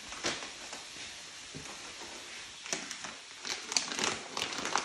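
Crinkling and crackling of a packet and dry garlic skins as garlic cloves are broken off and peeled by hand. It starts with a few faint clicks, then a dense run of sharp crackles in the second half.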